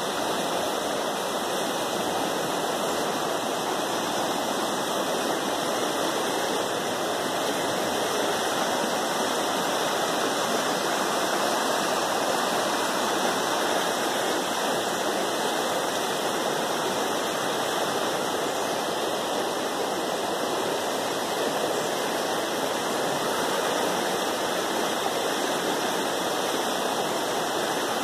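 A river in flood, swollen brown water rushing over rapids with a steady, unbroken roar of moving water.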